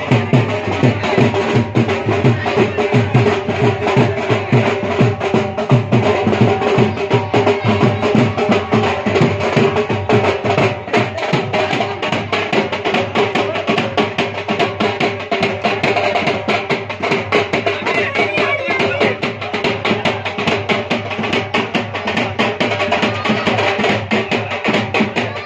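Loud dance music with a steady drum beat, playing without a break.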